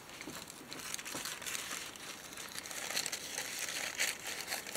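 Sparkly wrapping tissue paper rustling and crinkling as it is handled and trimmed with small scissors, in irregular small crackles.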